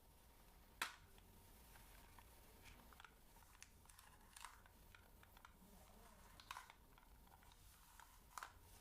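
ASMR ear-cleaning sounds close to the microphone: faint, scattered scratching and small clicks, with a sharper click about a second in and a few more near the middle and end.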